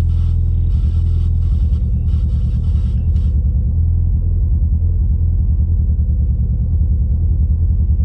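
Mitsubishi Lancer Evolution IV's turbocharged 2.0-litre inline-four (4G63) running, heard from inside the cabin, with a misfire that is kind of bad right now; the owner suspects oil fouling a spark plug, and one cylinder's plug is later found wet.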